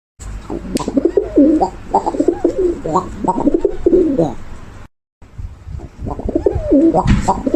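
Pigeon cooing: a run of repeated, wavering throaty coos, broken by a moment of complete silence about five seconds in before the cooing resumes.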